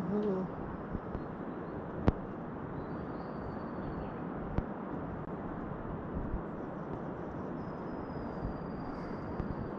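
Steady rushing outdoor ambience with an unsteady low rumble, broken by a sharp click about two seconds in and a smaller one about four and a half seconds in. Faint thin high whistles sound near the middle and again near the end.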